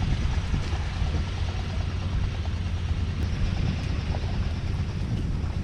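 Wind buffeting the microphone: a steady, fluctuating low rumble, with a few faint ticks from work on deck.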